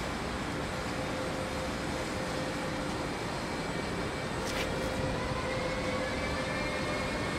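Two DB Schenker class 189 (Siemens ES64F4) electric locomotives pulling an empty ore train slowly away, with a steady hum. From about five and a half seconds in, a faint whine rising in pitch as the locomotives' traction equipment accelerates. A brief sharp click comes about four and a half seconds in.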